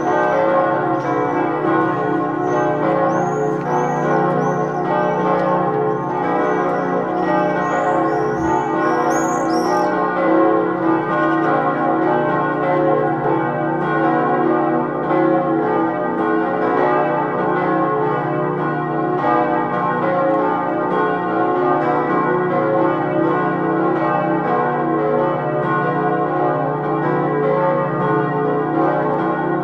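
Full peal of five swinging church bells, tuned B, C♯, D♯, F♯ and F, ringing together in a dense, steady, overlapping clang. The set is three bronze bells cast by Perner of Passau in 2011 and 2013 and two medieval bells.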